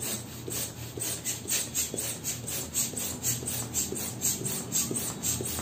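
Hand-held plastic balloon pump worked in quick strokes, about four a second, each stroke a puff of air rushing into a latex balloon as it inflates.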